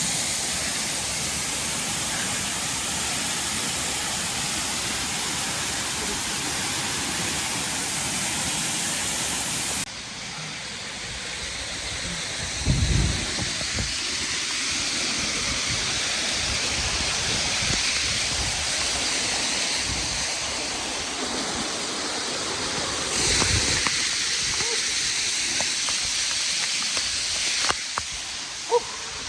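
Waterfall rushing: a steady wash of falling water, which changes in tone abruptly about ten seconds in and again near the end, with two brief low thumps in between.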